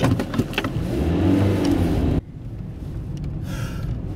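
Car engine revving as it accelerates, heard inside the cabin, cutting off abruptly about two seconds in and leaving a lower, steady road rumble.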